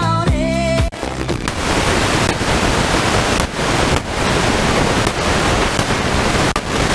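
A song playing on an FM portable radio cuts off about a second in, giving way to steady FM static hiss as the Eton Grundig Executive Satellite is tuned off the station into empty channels; the hiss drops out briefly a few times.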